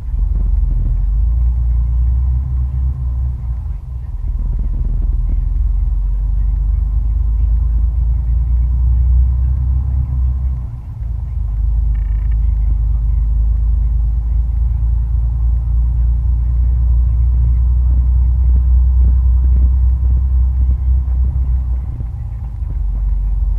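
Vehicle engine and tyres on a gravel forest track, heard from inside the cab as a steady low rumble that dips briefly about four and eleven seconds in.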